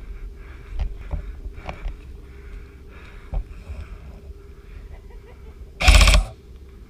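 Footsteps and gear rustling with small scattered clicks, then near the end a short burst of full-auto fire from an airsoft electric rifle (AEG), about half a second long and the loudest sound.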